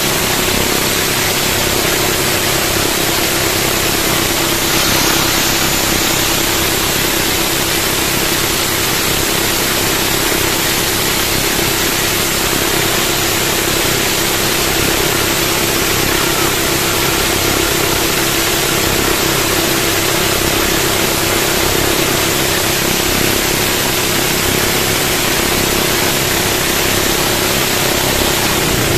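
Twin Honda 16 hp engines of a fiberglass outrigger boat running steadily at speed, under a constant rush of water and wind.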